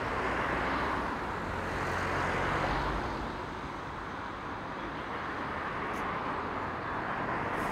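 Road traffic passing: a steady rush of tyres and engines that swells as vehicles go by, with a low engine hum in the first few seconds.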